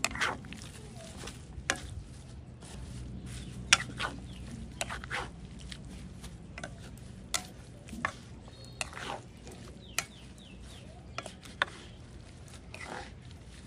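A spatula scraping and knocking against a wok while chicken, vegetables and leaves are stir-fried. There are irregular sharp knocks and a few longer scrapes over a faint low hum.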